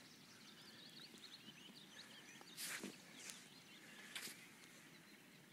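Near silence with faint distant birdsong, many short chirps. Two brief noises about two and a half and four seconds in.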